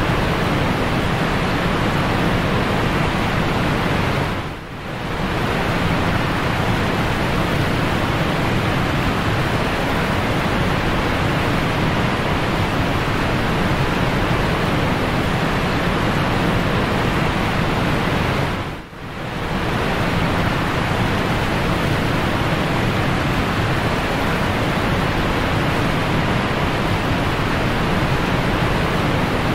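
Steady rush of splashing water from an aquarium filter, with no speech or clicks. It drops away briefly twice.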